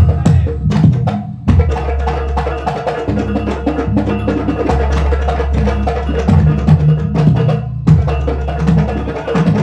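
Several Banyuwangi kendang (two-headed barrel hand drums), miked and amplified, played together in a fast interlocking rhythm for a sound check. The strokes break off briefly about a second in and again near the end.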